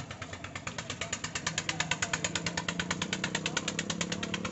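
Fishing boat's small engine running with a rapid, even chugging of about eleven beats a second, growing louder about a second in and easing near the end.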